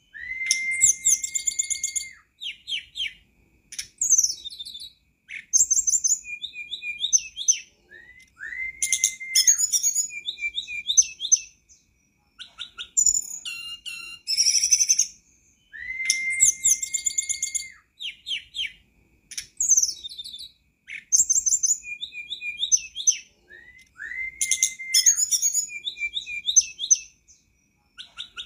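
Tledekan gunung (hill blue flycatcher) song: a clear whistle held steady for about two seconds, then rapid high twittering and short varied notes. The same phrase sequence comes back about every eight seconds, as in a looped master track used to train caged birds and get them singing.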